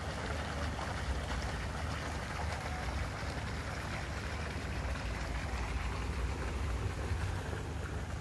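Water gushing from a large hose into a concrete-lined ditch as the dry channel is filled, a steady splashing rush over a steady low rumble.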